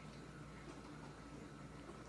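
Quiet room tone: a low steady hum with faint background hiss and a few faint ticks.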